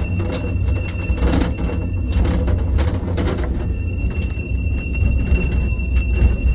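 Tram running on its track: a steady low rumble with rattling and clicking, and a high steady whine that drops out for about a second midway.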